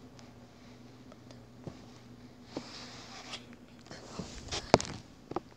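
Light scattered taps, clicks and rustles over a faint steady low hum, with one sharper knock about three-quarters of the way through.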